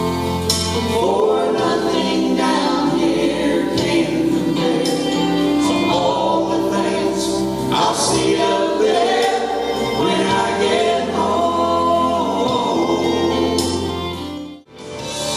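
Gospel trio of one man and two women singing together into microphones with musical backing. Near the end the song fades down and drops out briefly.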